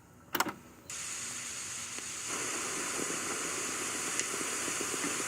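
A short click, then a steady, even hiss that sets in about a second in and holds without any rhythm.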